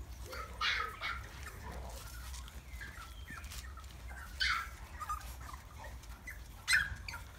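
Six-week-old boxer puppies giving short, high-pitched yelps and whines. Three louder ones come a few seconds apart, with fainter squeaks between.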